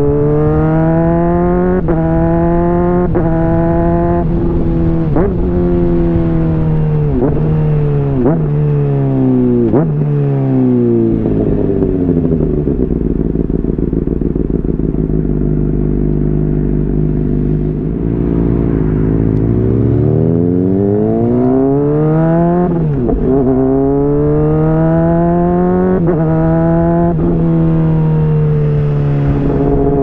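Honda CBR600RR's inline-four with a slip-on exhaust, pulling through the gears with quick upshifts, then slowing with sharp throttle blips on each downshift. It runs low and steady for several seconds before accelerating through the gears again.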